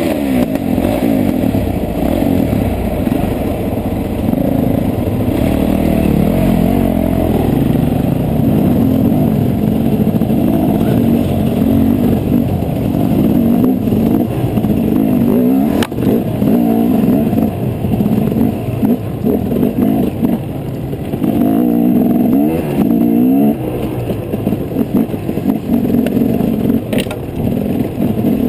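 KTM enduro motorcycle engine revving up and down as the bike climbs a rough, rocky trail, heard from a camera mounted on the bike itself. Two sharp knocks come through, one midway and one near the end.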